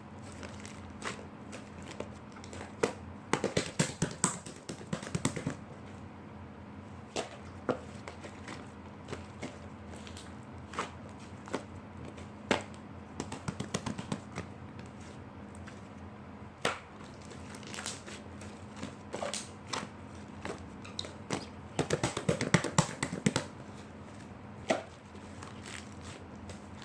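Slime being squeezed and poked by hand, giving irregular sticky clicks and crackles, densest a few seconds in and again near the end.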